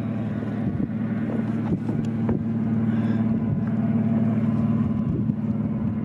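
Motorboat engine running with a steady, low drone.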